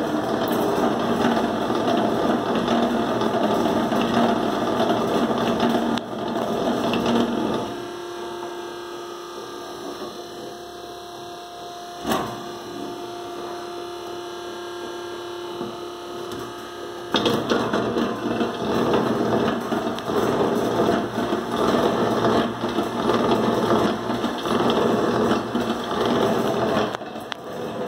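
Electric 1 kg drum coffee roaster running, its motor turning the steel drum through the gear drive with a steady mechanical noise. About eight seconds in, the noise drops to a quieter steady hum with a single click. The louder running returns about seventeen seconds in.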